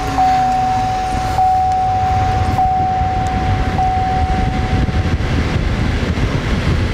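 Chevrolet 1500's 5.3-litre V8 running just after being started, a brief rev settling to a steady idle in the first second. A steady high chime tone, ticking faintly about once a second, sounds over it and stops about five seconds in.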